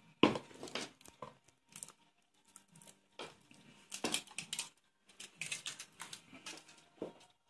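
The foil wrapper of a Kinder Surprise chocolate egg crinkling and tearing as it is peeled off by hand, in irregular bursts of crackling.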